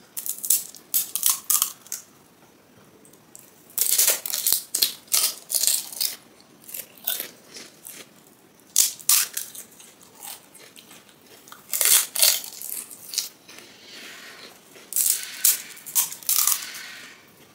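Crisp, hollow panipuri (golgappa) shells crunching and crackling, close-miked, as they are cracked open and chewed. The crunches come in clusters of quick crackles every few seconds.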